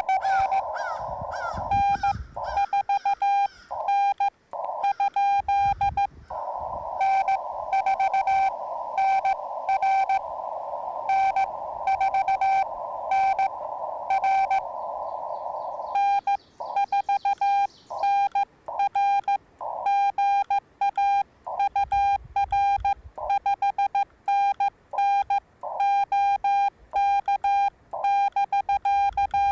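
Morse code (CW) audio from a ham radio transceiver: a single steady tone keyed on and off in dots and dashes, with the receiver's band hiss filling the gaps in some stretches. This is the exchange of a CW contact.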